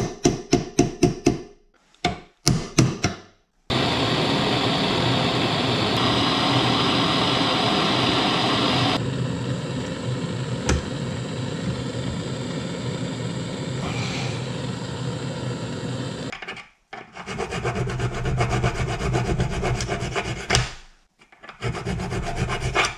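A hand file rasping on the steel teeth of a lathe's carriage pinion gear clamped in a vise, filing off the burrs left where the rack chewed the teeth. It starts as quick strokes, about four a second, then turns into longer runs of continuous rasping.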